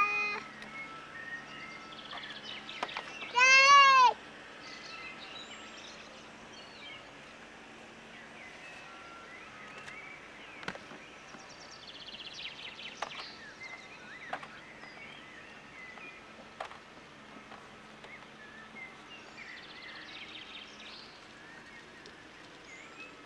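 A toddler's loud wailing cry, one drawn-out wail that rises and falls about four seconds in. After it, faint bird chirps and a few sharp clicks over a low steady hum.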